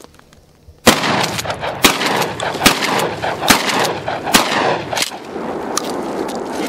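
Mossberg 590 12-gauge pump-action shotgun fired rapidly, about five shots roughly a second apart starting about a second in, with echoes filling the gaps between shots.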